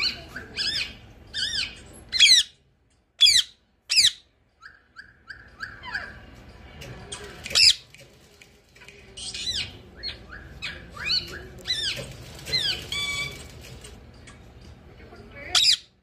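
Rose-ringed parakeet calls: quick runs of short repeated chirps and sharp squawks that slide down in pitch, broken by two brief dead-silent gaps about three seconds in.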